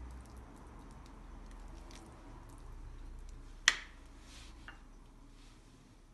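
Soft squishing and faint clicks of a spoon packing rice-and-mince stuffing into a hollowed zucchini, with one sharp clink of the metal spoon on the ceramic bowl a little over halfway through.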